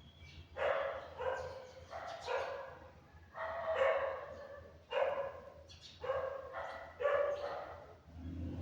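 A run of short, dog-like barks, about one a second, starting just under a second in.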